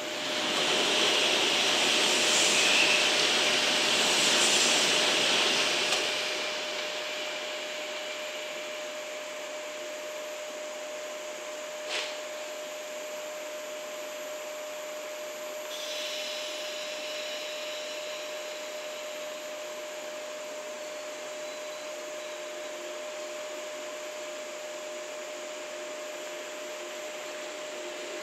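JNR 117 series electric train standing at the platform with a steady hum from its equipment. A loud hiss runs for about the first six seconds, and there is a single sharp click about twelve seconds in.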